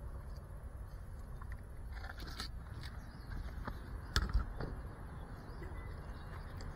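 Handling noise on a small action camera's microphone as the camera is moved and set down: a faint low rumble with scattered light clicks and one louder knock about four seconds in.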